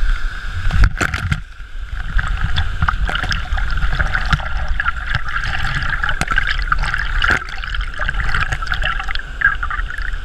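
Icy water splashing and sloshing close to the microphone as a person swims, with many small clicks over a steady low rumble. A short dip about a second and a half in.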